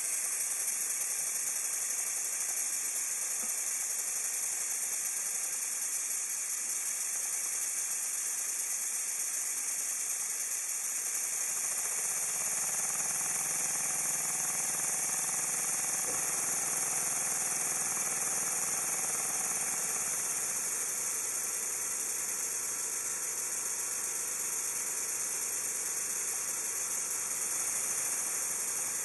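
Miniature vertical steam boiler feed pump running on compressed air: a steady high air hiss with the pump's rapid, even mechanical strokes. Partway through, a lower rhythmic pulsing joins the hiss.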